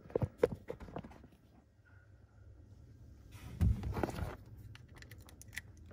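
Small plastic wire connectors being handled and plugged into a plastic junction box, with light clicks and rustles of wire. About three and a half seconds in there is a louder rub and thump.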